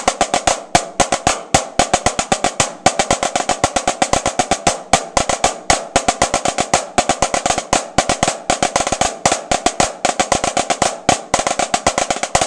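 Two snare drums played together through the ending of a rudimental snare solo: fast sticking with strong accents and open rolls. The two players' tempo fluctuates a little, so their strokes do not line up and it sounds fuzzy.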